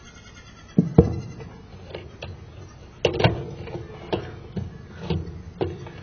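Irregular sharp clicks and knocks, some with a brief metallic ring, as pliers and a single-pole condenser contactor are handled inside the sheet-metal control box of a home air-conditioner condenser.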